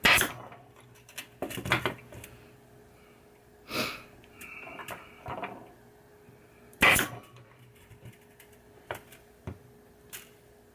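Work on a pinball playfield's wiring with hand tools: a handful of sharp clicks and snaps at irregular intervals, with quiet handling in between.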